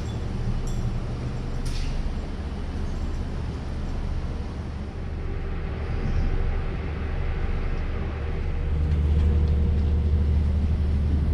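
Boat engine running with a steady low hum that grows louder about nine seconds in.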